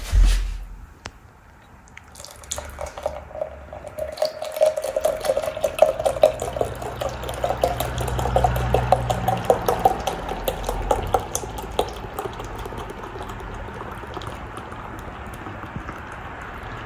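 Guinness Draught stout poured from its nitrogen-widget can into a stemmed glass: the beer glugs and splashes into the glass, the pitch rising as the glass fills, then eases into a softer, steadier pour for the last few seconds. A sharp thump comes right at the start.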